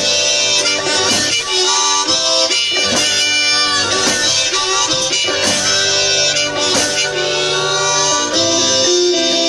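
One-man band playing a blues-style tune: a harmonica carries the melody over a strummed guitar, with regular drum hits from the rig.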